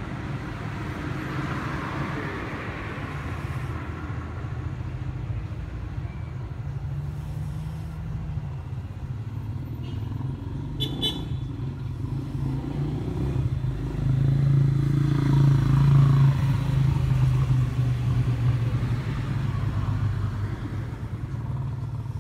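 Road traffic: the steady hum of passing motor vehicles' engines, swelling louder past the middle as a vehicle goes by. A brief sharp click comes about halfway through.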